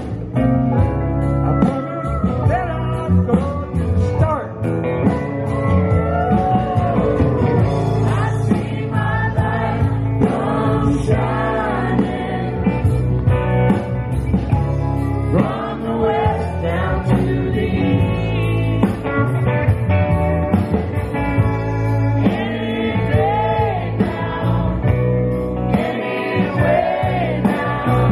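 Live Americana band playing, with acoustic guitar strumming and several voices singing together.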